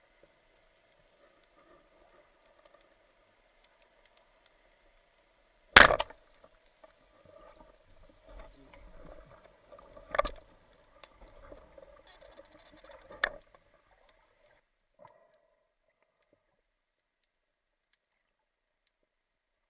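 Underwater, a band-powered speargun fires with a sharp crack about six seconds in. It is the loudest sound. Two more sharp knocks follow, with scraping and knocking between them, as the spear shaft with a white sea bream on it is handled.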